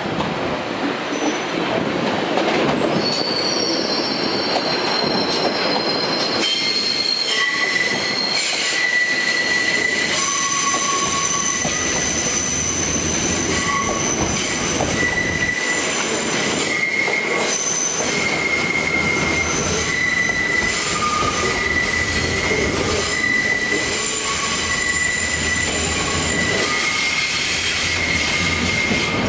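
A train's steel wheels squealing against the rails as it moves slowly through curved track, over steady rail rumble. High-pitched squeals start a few seconds in and keep coming and going, several pitches at once.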